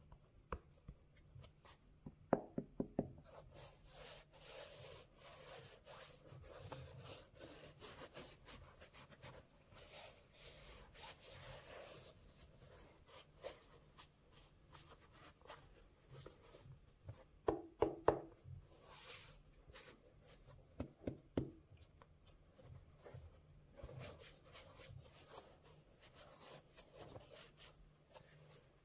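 Cotton-gloved hands handling a Nike Air Max Penny sneaker: soft rubbing and scuffing of glove fabric over the shoe's upper and rubber sole. Clusters of quick light taps come about two seconds in and twice more in the second half.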